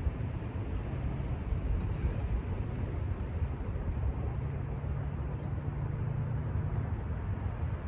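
Wind rumbling steadily on the microphone in a breeze, a low uneven rumble with no clear rhythm.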